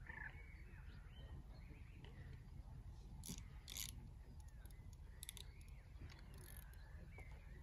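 A few short, faint mechanical clicks of fishing tackle being handled, over faint birdsong and a low outdoor rumble.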